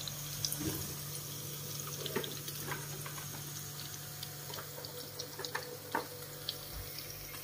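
Quiet steady hiss of a lit gas stove burner under a nonstick frying pan as its oil heats, with a low hum and scattered faint ticks and crackles.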